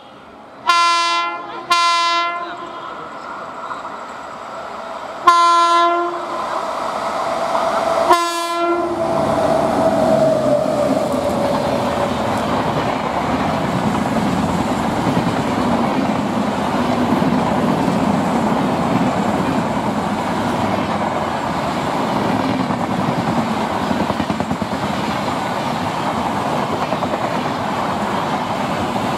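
Indian electric locomotive horn sounding four short blasts, two close together about a second in, then one at about five seconds and one at about eight. After that comes the steady rumble and clatter of express passenger coaches passing at speed on the rails.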